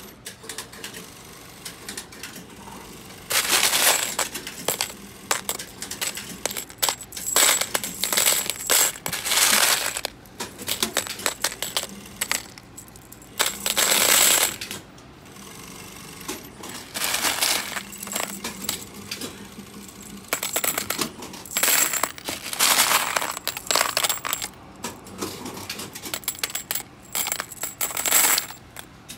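Handfuls of small black-coated metal Stimpson #1 grommets being scooped up and let fall back into a plastic bin full of them, a bright jingling clatter of many small metal parts. It comes in repeated bursts, starting about three seconds in.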